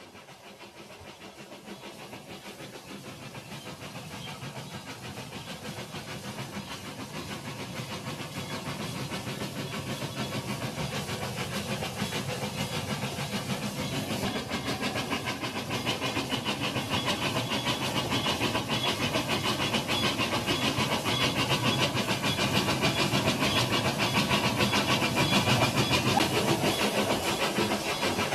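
Toy train running on plastic track laid through shallow water, its motor and wheels making a steady whirring with a fast ticking, growing steadily louder as it comes closer.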